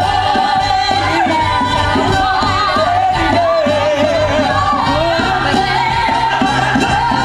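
A stage-musical song: singing with vibrato over band accompaniment with a steady bass line and a regular beat, heard from the audience in a theatre.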